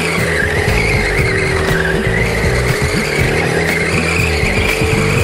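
RC drift car sliding on a painted concrete floor, its tyres giving a continuous squeal that wavers up and down in pitch as it drifts.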